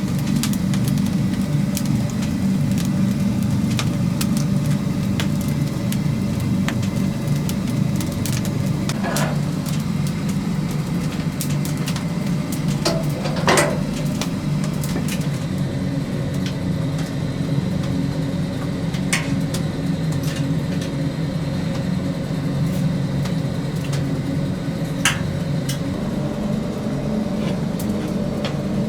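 Steady low machine hum with a few scattered sharp clicks and ticks.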